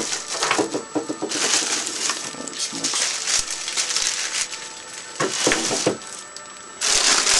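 Packaging being handled during unboxing: irregular rustling and crinkling of packing material with scattered light knocks, dropping off about six seconds in and picking up again near the end.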